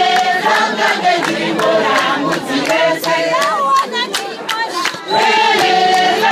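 A crowd of women singing together in chorus, with sharp claps running through the song.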